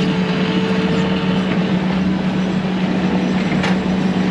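Bobcat T630 skid steer's diesel engine running steadily under work, with a light knock about three and a half seconds in.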